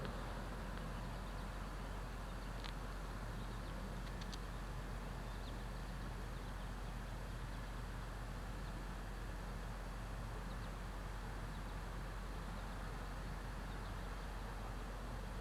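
Steady outdoor background noise with a low rumble, and a few faint, short, high chirps about three and four seconds in.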